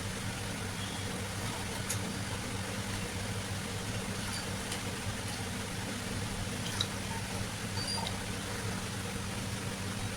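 Steady low hum under a constant hiss, with a few faint light clicks.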